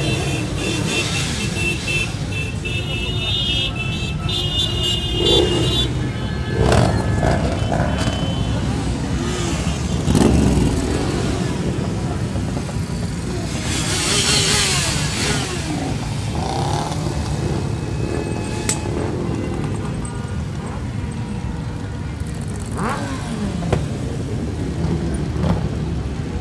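A long column of motorcycles riding past: a dense, steady drone of many engines, with single bikes revving up and down as they go by.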